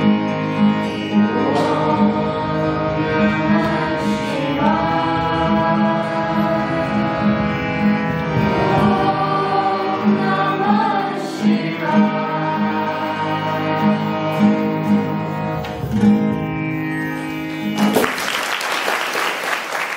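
A group of young voices singing a song in unison, accompanied by a harmonium's sustained chords and a strummed acoustic guitar. The song ends about two seconds before the end and applause begins.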